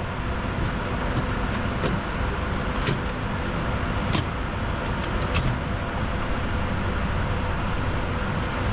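Steady cockpit noise of a Bombardier Challenger 605 jet in flight: rumble and rushing airflow, with faint steady tones, a few short clicks.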